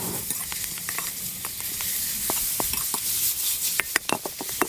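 Pork and vegetables sizzling in a hot wok, with a metal utensil stirring, scraping and clinking against the pan. The clinks come quicker near the end.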